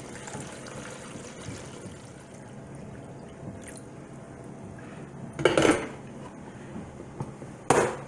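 Water being poured in a steady stream to fill a drip coffee maker. About five and a half seconds in, and again near the end, the pot or the machine's parts knock twice.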